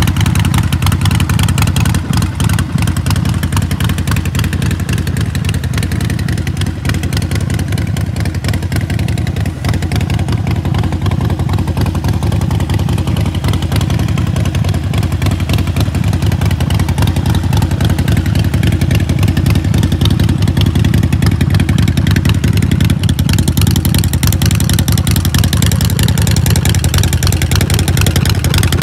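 Harley-Davidson Sportster Forty-Eight's 1200 cc air-cooled V-twin running steadily at idle through black Vance & Hines Short Shot staggered exhausts, a loud, deep, pulsing exhaust note.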